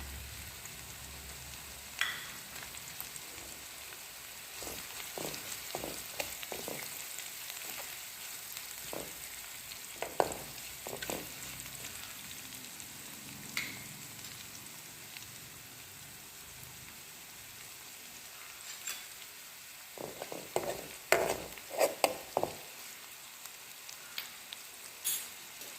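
Oil sizzling steadily in a pan as shallots, curry leaves and mustard seeds fry for a tempering, with scattered knocks and scrapes of a spoon stirring against the pan, most in two spells.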